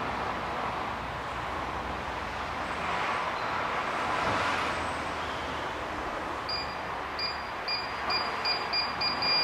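Digital torque angle gauge on a ratchet beeping as a big-end bolt is tightened through 90 degrees: about two-thirds in, short high beeps start, come faster and faster, and run into one steady beep at the end as the set angle is reached. Steady background hiss underneath.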